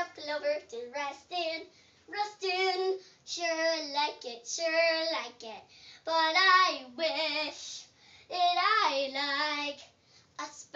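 A young girl singing an improvised song unaccompanied, in short phrases with brief pauses between, her held notes wavering in pitch.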